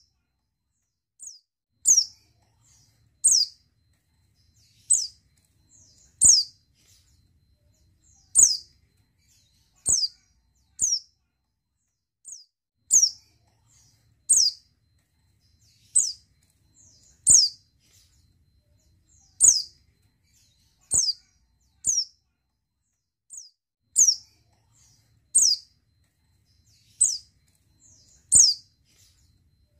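Female white-eye (pleci) calling: short, very high call notes that slide quickly downward, about one every second or so, sometimes two in quick succession. These are the calls of a female in breeding condition.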